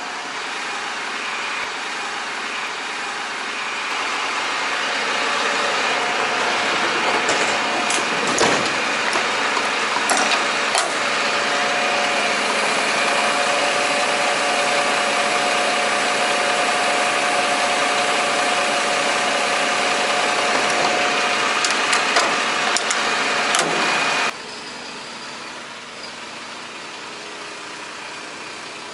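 A truck's engine running loud and steady, with a few clicks and clanks; about 24 seconds in the sound drops suddenly to the quieter, steady engine hum heard inside the truck's cab.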